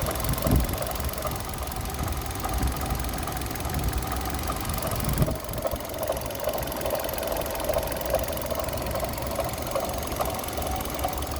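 Third-generation Kia Rio engine running steadily with a knock, the engine fault the owner is showing. The sound dips briefly about five seconds in, then carries on as before.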